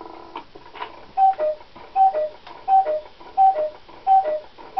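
An 8-day cuckoo clock with a Regula 34 movement striking eight o'clock on its bellows. There is a short whir at the start, then the two-note cuckoo call, a higher note then a lower one, repeats about every 0.7 seconds. Five calls sound, and a sixth begins near the end.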